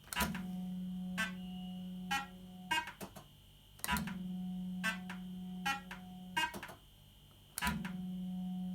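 1980s JPM Nudge Double Up fruit machine playing three spins in a row. Each spin starts with a click, followed by a steady hum while the reels turn and a few clicks as they stop one by one.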